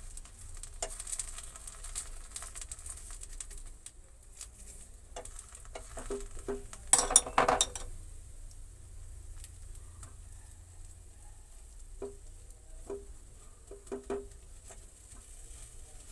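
Metal spoon spreading Schezwan chutney over a moong dal pancake in a non-stick pan, with scattered scraping and tapping against the pan over a light sizzle of the base cooking. A louder clatter of the spoon about seven seconds in.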